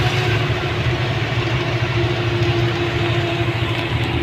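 A truck's engine running steadily under way, heard from inside the cab along with road noise: a continuous low drone, with a faint steady whine over it in the second half.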